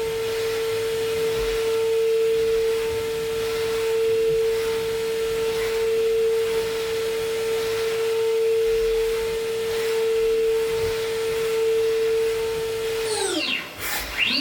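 Brother SPEEDIO S500Xd1 5-axis machining centre milling an aluminium impeller at high speed: a steady high-pitched whine from the spindle and cutter, over cutting noise. Near the end the spindle's pitch sweeps quickly down, then climbs back to the same whine as it spins up again.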